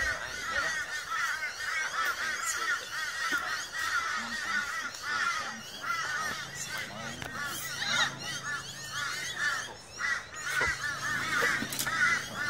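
Many birds calling at once: a dense, unbroken chorus of short, overlapping calls.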